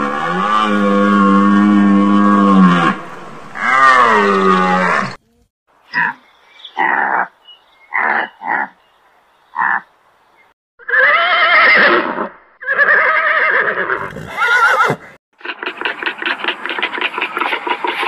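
A run of different animal calls, one after another. It opens with a long, held, low-pitched call and a second call that bends in pitch. A few short separate calls follow, then wavering calls, then a fast train of pulsed grunts near the end.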